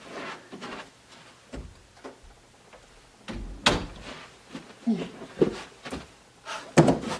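A string of knocks and bumps in a small room, the sharpest a click a little over halfway through, with a few louder bumps near the end.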